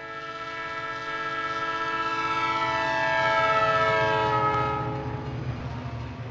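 Train horn sounding one long chord as a train passes, swelling to its loudest about three and a half seconds in with its pitch sagging slightly, then fading out about five seconds in. The train's low rumble runs on beneath it.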